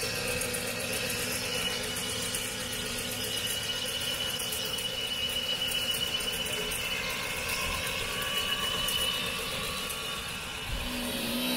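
A pickup truck's tailgate ice-melt spreader running while the truck drives slowly: steady mechanical and road noise with a thin, steady high whine through most of the stretch, fading out a little before the end.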